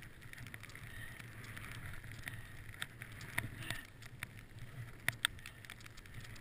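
Skis hissing through snow on a run through the trees, with a few sharp clicks and taps about three seconds in and again about five seconds in.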